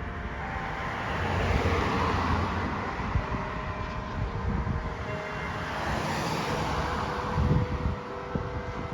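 A passing vehicle's rushing noise that swells, eases and swells again, with the faint steady hum of church bells still lingering underneath.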